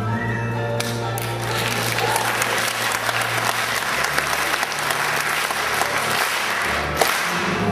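Audience applauding over background music, the clapping starting about a second in.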